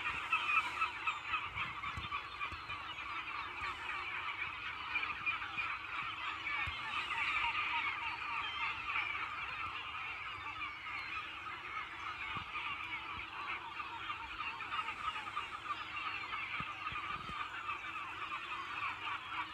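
A large flock of gulls calling all at once, a continuous din of overlapping cries with no pause.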